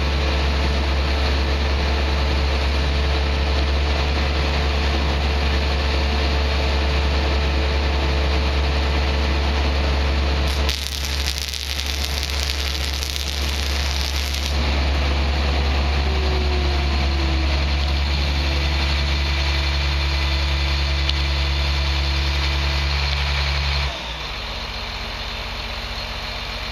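Truck engine idling steadily with a deep, even hum. About eleven seconds in, a few seconds of hissing noise overlay it. Near the end the engine sound drops abruptly to a quieter, lower idle.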